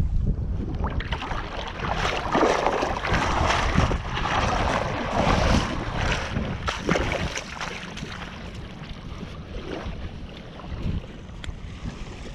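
Shallow water splashing and sloshing as a hand plunges into it, busiest for the first several seconds and then easing off, over the steady rumble of wind buffeting the microphone.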